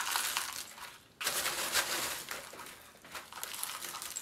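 Coarse orchid potting mix of bark chunks and small stones crunching and clinking as it is scooped by hand and pushed into a small plastic pot. There are two spells of handling, the second starting about a second in and louder.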